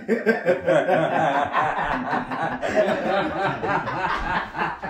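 Several men laughing together, their laughter overlapping without a break.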